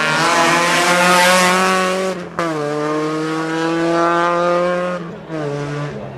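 Rally car engine running hard at high revs through a bend, with a sharp break in the sound about two seconds in before the engine picks up again and holds high revs.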